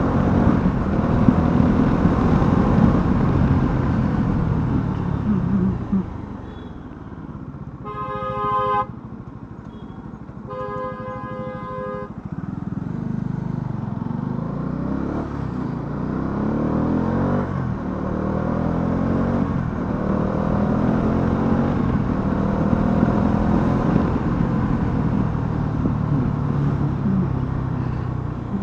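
Bajaj Dominar 400's single-cylinder engine running under the rider, revving up and shifting through gears, then falling to a low idle about six seconds in. A vehicle horn sounds twice, each blast about a second long, before the engine revs up again and pulls through the gears.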